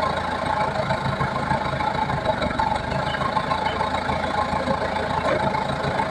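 Engine of a log-hauling machine running steadily at an even speed.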